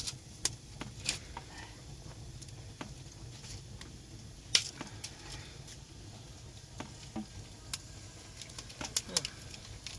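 Dry wood cracking and crackling in sharp, irregular snaps: dry branches being broken by hand and a small wood fire burning. One crack about four and a half seconds in is much the loudest.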